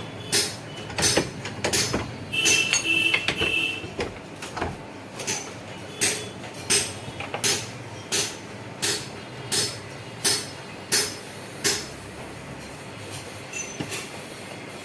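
Hammer blows in a workshop, struck at an even pace of about one every 0.7 seconds through the middle, with lighter taps near the end. A brief high squeak comes about two and a half seconds in.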